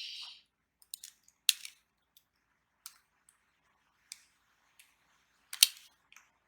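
Scattered small clicks and taps of plastic Beyblade top parts being handled and fitted together, about one every second, the sharpest about five and a half seconds in, after a brief rustle at the start.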